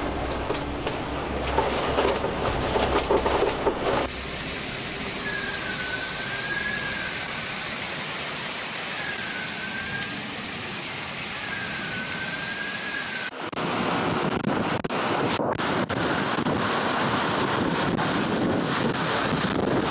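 Storm wind in three clips cut together: gusts buffeting the microphone, then a steadier even hiss with a faint wavering whistle heard three times, then gusty wind buffeting the microphone again, cutting in abruptly about two-thirds of the way through.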